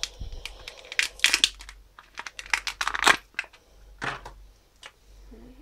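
Clear plastic blister packet crinkling and crackling in a run of sharp, irregular bursts as a small keychain toy is pulled out of it. The loudest crackles come about one and three seconds in, and the handling stops about four seconds in.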